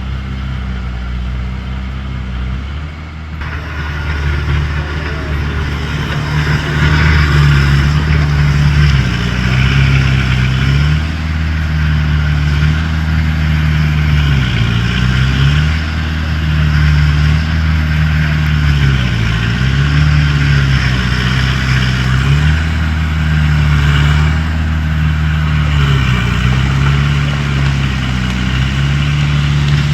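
Diesel engine of a Caterpillar bulldozer running hard, growing louder a few seconds in. Its pitch dips briefly and recovers several times, with a rattly mechanical noise over it.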